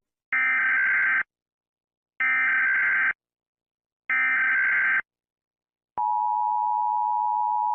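Emergency Alert System signal: three identical bursts of buzzy digital data tone, each about a second long and a second apart, then a long steady attention tone that starts about six seconds in.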